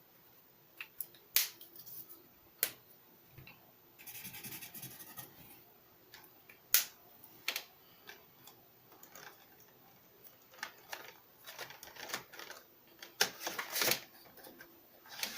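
Art supplies being handled and a colour being swatched on paper: sharp clicks and taps as pieces are picked up and set down on the table, with a short stretch of scratchy rubbing on paper about four seconds in and more scratching and tapping near the end.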